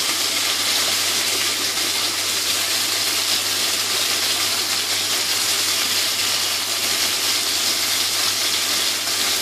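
Chicken wings sizzling in hot oil in a wok: a steady, even frying hiss.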